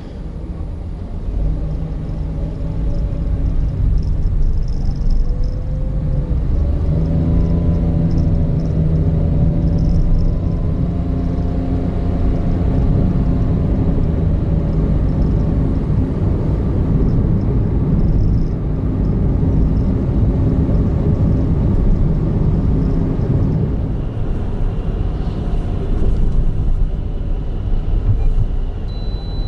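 Honda N-BOX Custom's 660 cc intercooled turbo three-cylinder engine with tyre and road rumble while driving. The engine note climbs in pitch as the car speeds up over the first several seconds, then holds steady at cruise. A faint short high beep comes near the end.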